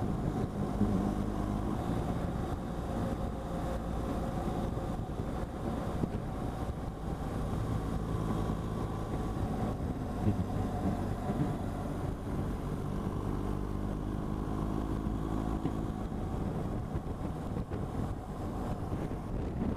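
BMW R1200GS boxer-twin engine running at road speed, its note shifting slightly with the throttle, with wind rushing over the microphone.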